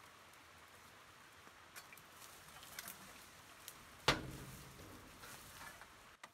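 Telescopic pole pruning saw working among tree branches overhead: faint rustling and scattered clicks, with one sharp knock about four seconds in that rings briefly.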